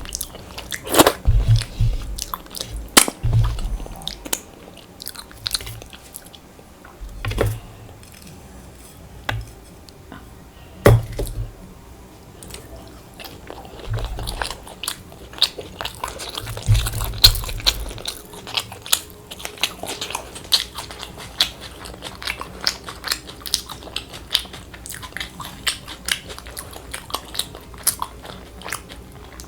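Close-miked chewing and crunching of a meal of luchi with chana dal and crispy fried potato. It starts with a handful of sharp bites and low thumps, then about two-thirds of the way in turns into a dense run of fine, crackly crunching.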